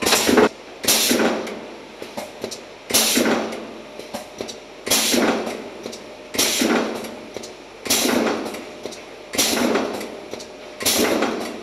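Pneumatic stations of an automatic aerosol filling line cycling: a sudden loud clack-and-rush of noise every one and a half to two seconds, each fading within about a second, over the steady running of the line.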